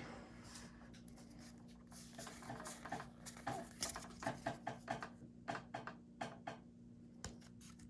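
Faint, soft clicks and rustles of a freshly opened pack of Pokémon trading cards being handled and slid one behind another, many small ticks in an irregular run.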